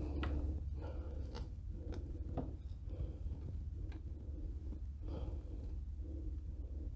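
Scattered faint clicks and scrapes of a screwdriver turning a gear-oil screw in an outboard motor's lower gear case, over a steady low hum.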